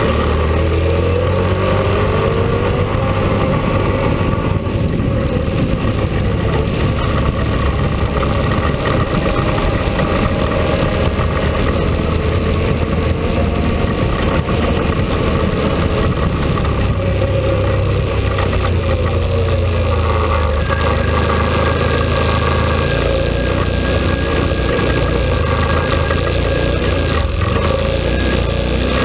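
Can-Am ATV engine running steadily while riding over rough ground. Its pitch rises and falls with the throttle, clearly near the start and again about two-thirds of the way through.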